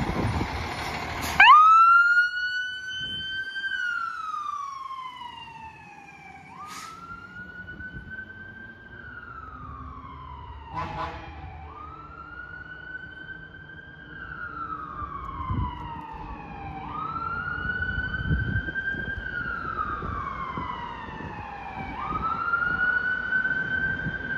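Fire engine's siren wailing as the engine pulls away, starting about a second in and loudest at its first rise. Each cycle rises quickly and falls slowly, about five seconds apart, over a low engine rumble.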